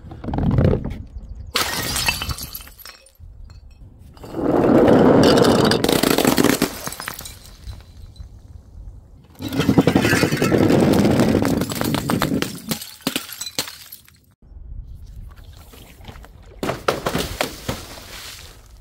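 Glass bottles smashing, with shards crashing and clattering, in several bursts. There are short crashes near the start and near the end, and two long, loud cascades of about three seconds each in the middle.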